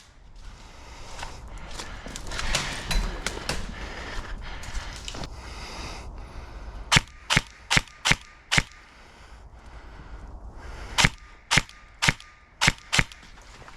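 Airsoft electric gun firing two strings of five single shots, about two shots a second, the first string about seven seconds in and the second about eleven seconds in. Rustling movement is heard before the shots.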